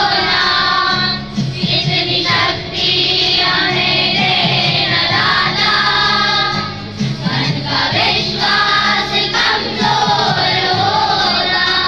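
A group of boys singing an assembly prayer together in unison, over steady held low instrumental notes.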